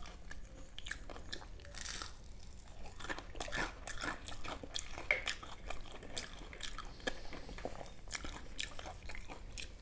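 Chewing and crunching of crispy fried fritters with rice: a dense, irregular run of crackles and wet mouth clicks.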